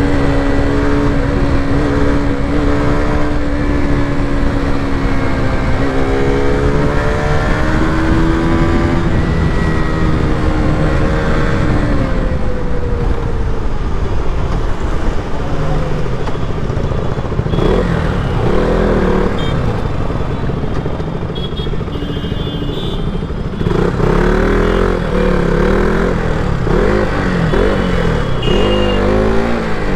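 KTM RC 200's single-cylinder engine running under way, its pitch rising and falling with throttle and gear changes, over a steady rush of low noise.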